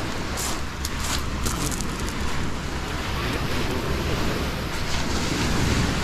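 Wind buffeting an action camera's microphone as a low rumble, over the hiss of small waves washing onto the beach, with a few brief hisses in the first second or two.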